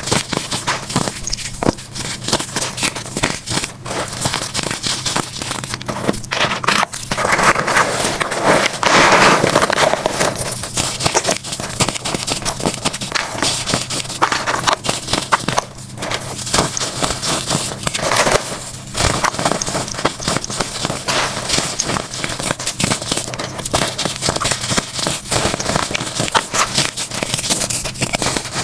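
Baked baking soda blocks being crushed and crumbled: dense, continuous crackling and crunching, loudest about seven to ten seconds in.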